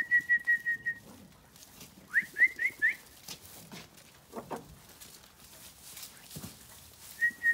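A shepherd's whistled call to sheep: a trilled whistle pulsing about six times a second on one high note for about a second, then four quick rising whistles a couple of seconds in.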